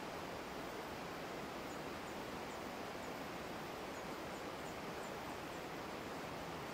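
Steady rushing noise of flowing water, with about ten faint, very high, short chirps in the middle stretch.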